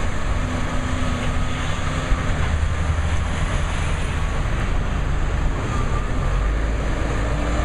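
Backhoe loader's diesel engine running steadily close by while it tips compost out of its front loader bucket.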